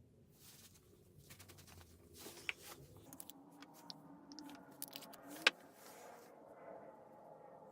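Scattered light metallic clicks and taps as small metal parts are handled, the sharpest about five and a half seconds in.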